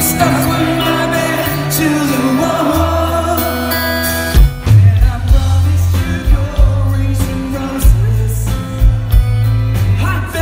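Live rock band playing on a concert stage: sustained chords with a wavering melody line over them, then about four seconds in the drum kit and bass come in hard with heavy, repeated drum hits.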